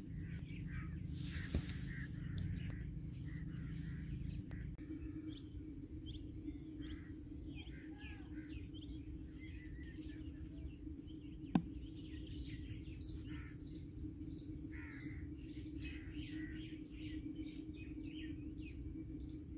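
Many birds chirping and calling in short, scattered notes over a steady low hum, with one sharp click about twelve seconds in.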